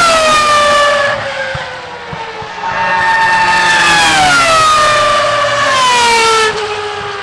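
Ferrari Formula 1 car's engine at high revs going by, a high-pitched multi-tone note falling in pitch in steps. A second pass starts about three seconds in and falls away again near the end.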